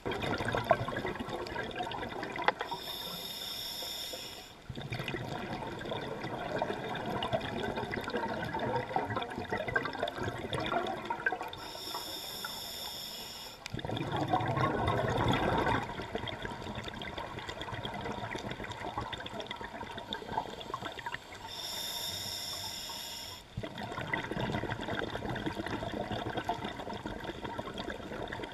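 Scuba diver breathing through a regulator underwater, in a slow cycle about every ten seconds. Each breath in is a short high hiss from the regulator, three times in all, and each breath out is a longer spell of rushing, gurgling exhaust bubbles.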